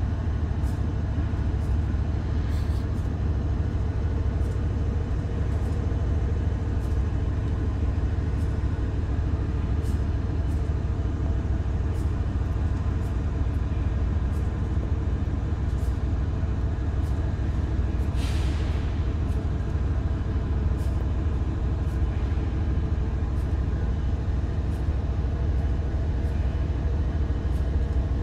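Diesel locomotive engine idling close by, a steady deep drone. A short hiss of released air comes about two-thirds of the way through.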